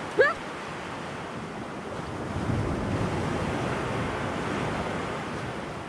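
Sea surf washing on a rocky shore, mixed with wind on the microphone, a steady rushing that swells about two seconds in and eases near the end.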